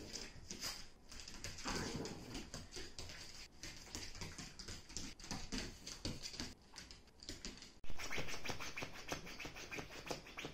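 Mame Shiba dog's claws clicking and skittering on a wooden floor as it dashes and spins about, then, from about eight seconds in, a louder, denser scrabbling as it paws at a padded floor mat.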